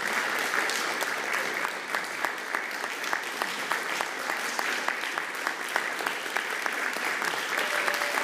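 Audience applauding, a dense, steady clatter of many hands clapping.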